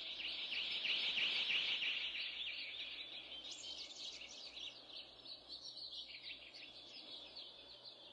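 Small birds chirping rapidly in a dense, high chorus that fades out toward the end.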